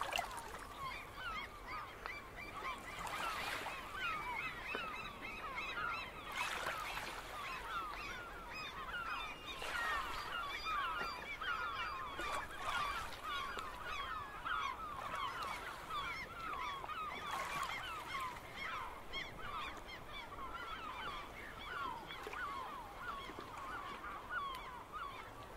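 A large flock of birds calling without pause, many short falling calls overlapping one another, fairly faint. Soft swells of noise rise and fall every few seconds.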